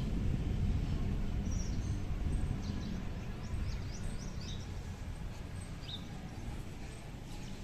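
Outdoor ambience: a steady low rumble with small birds chirping, a cluster of quick short chirps from about a second and a half in and one more near six seconds.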